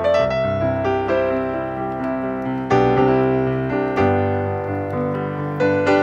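Background piano music: slow, gentle notes and chords struck every second or so, each left to ring and fade.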